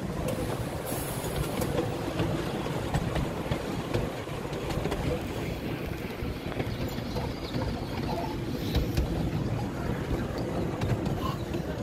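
A 10¼-inch gauge miniature steam train running, heard from aboard a passenger carriage: a steady rumble of wheels on the rails with occasional clicks.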